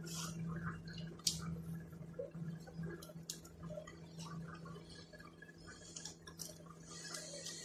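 Plastic clothespins clicking as they are snapped onto the edges of glued cardboard boxes: a few separate sharp clicks over a steady low hum, with a hiss near the end.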